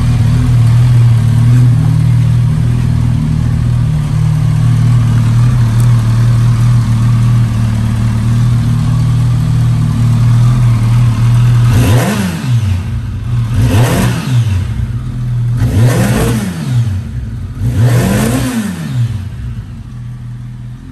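Honda CBR1100XX Super Blackbird's carbureted inline-four idling through a Moriwaki aftermarket exhaust. About halfway through, the throttle is blipped four times, about two seconds apart, each rev rising and falling back to idle.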